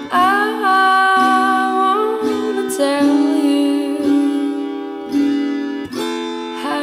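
Background music: a wordless vocal melody over plucked acoustic strings, with a new chord plucked about once a second.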